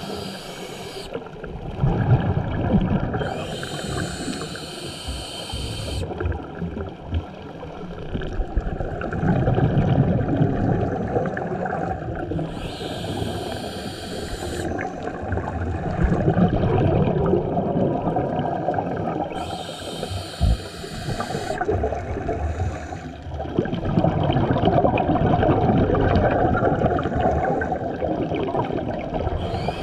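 A scuba diver's regulator breathing underwater: a hiss of air drawn through the regulator about every seven to eight seconds, four times, alternating with the bubbling rumble of exhaled air.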